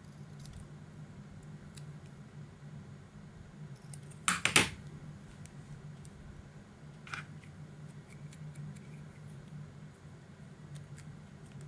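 Scissors snipping small pieces of paper, with a quick cluster of three sharp clacks about four seconds in as the loudest sound, then a few faint handling clicks, over a low steady hum.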